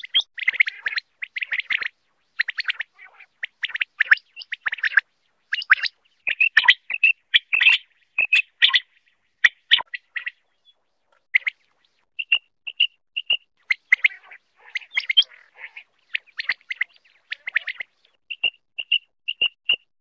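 Quail (batair) calling: quick groups of three or four short, sharp, high notes, alternating with denser rasping bursts of calls, with brief pauses between series.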